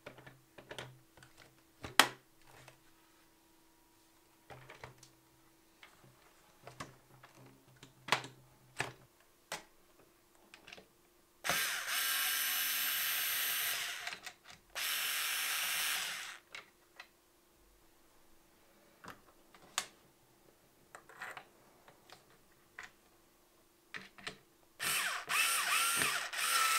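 Cordless electric screwdriver driving screws into the plastic body of a cordless stick vacuum: two steady runs of a couple of seconds in the middle, then a stop-start run near the end. Between the runs come sharp clicks and knocks of the plastic parts being handled.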